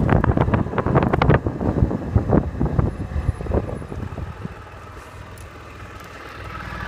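Wind buffeting the microphone on a moving Suzuki Burgman 650 maxi-scooter, dying away over the first four seconds as it slows down. The scooter's parallel-twin engine is left running low and steady, a little stronger near the end.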